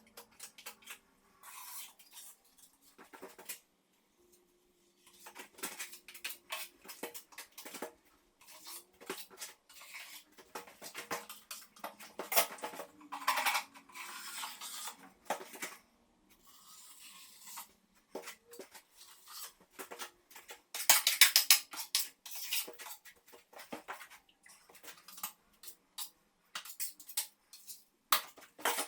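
Irregular clinking, knocking and scraping of metal hand tools against hard surfaces, in uneven clusters with short pauses.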